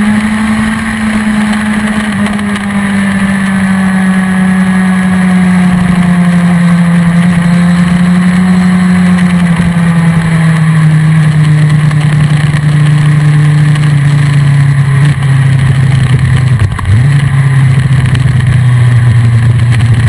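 BMW S1000RR inline-four engine running at part throttle on track, its pitch falling slowly as the revs drop, with wind noise rushing past. About three-quarters through, the note briefly dips and comes back.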